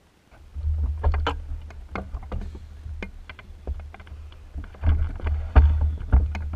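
Microlight trike being pushed and swung round by hand on its flat nosewheel, its engine off. There is a low rumble with irregular knocks and rattles of the frame and wing, heard through the camera mounted on the wing.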